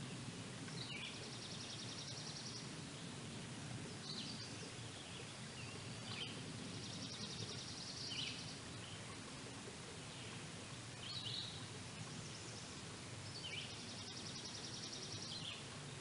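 A songbird singing: short slurred notes leading into a fast, high trill about two seconds long, repeated about every three to four seconds, over a steady low background noise.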